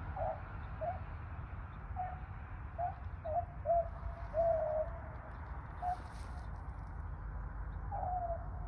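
A pack of rabbit hounds baying in the distance while running a rabbit through the cornfield: a string of short yelps and one longer drawn-out bawl, the sign that the pack is on the rabbit's track.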